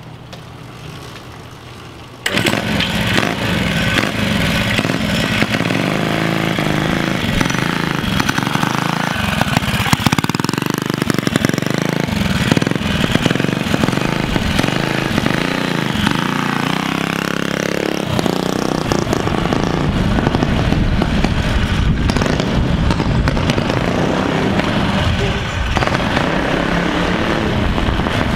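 A minibike trike's small engine running under throttle as it is ridden, revving up and down with its pitch rising and falling. It comes in abruptly about two seconds in, after a quieter start. It tends to want to die, so it is kept revved.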